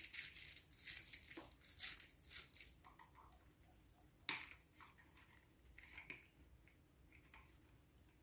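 Faint rustling and crinkling handling noises for the first few seconds, a single sharp click about four seconds in, then near silence.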